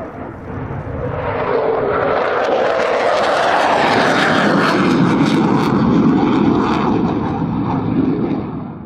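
F-15 fighter jet's twin engines roaring on a low-level pass, building over the first second or two and staying loud, with a tone sliding down in pitch as it goes by. The roar drops away sharply near the end.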